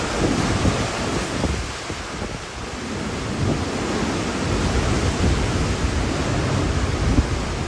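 Hurricane wind gusting with rain, a steady rushing noise, with gusts buffeting the microphone in irregular low thumps.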